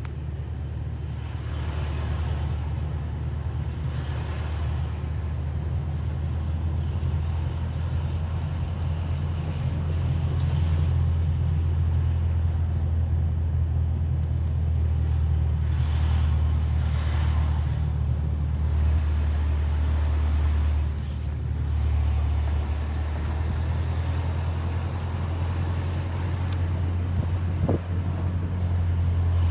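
Mercedes-Benz C-Class (W205) on the move: a steady low rumble of engine and road noise, with no clear brake squeal.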